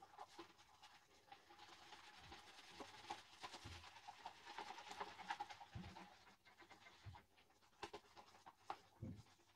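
Faint scratchy swishing of a synthetic shaving brush being worked over shaving soap, with a few soft low knocks.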